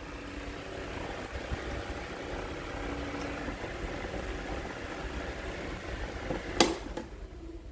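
AKIFan 12 V DC stand fan running, a steady hum with faint tones. A single sharp click comes near the end, and the sound is quieter after it.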